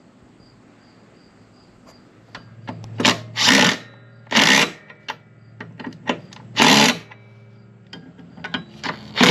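Cordless 18-volt impact driver run in four short bursts, tightening the blade bolt on an Exmark push mower, with clicks of the socket and tool handling between bursts.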